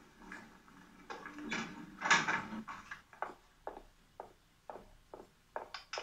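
A heavy wooden door scraping open, then regular footsteps at about two a second, heard through a television's speaker.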